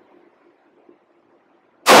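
A single 9mm pistol shot from a Nighthawk Custom Fire Hawk near the end, loud and sharp, its report ringing on for about a second in the enclosed range. Before it, only faint low range noise.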